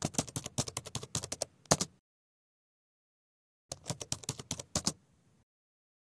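Rapid computer-keyboard typing clicks in two runs: about two seconds of quick keystrokes, then, after a pause of nearly two seconds, a shorter run of about a second and a half.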